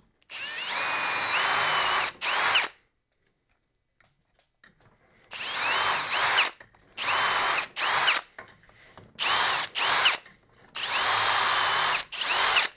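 Electric drill boring dowel holes through a metal doweling jig into plywood: a string of about eight short runs, the motor whining up and dropping away each time, with a quiet pause of a couple of seconds after the first two.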